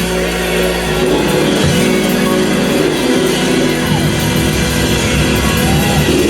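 Church band music: guitar, bass and drums playing steadily, with held low chords.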